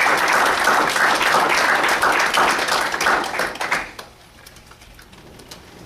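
Audience applauding, which dies away about four seconds in to a few scattered claps.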